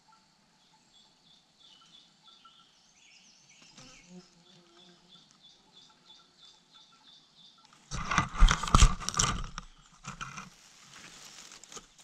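Faint insect-like chirping, then about eight seconds in a sudden loud burst of rustling and knocks as a hand pushes into the dry-grass nest right by the microphone, dying down to softer rustling after a second or two.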